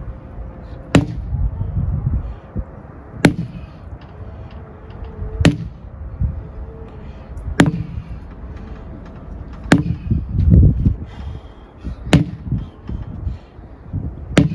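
Sledgehammer striking a tire in steady one-arm swings: seven sharp smacks, about one every two seconds. Wind rumbles on the microphone throughout.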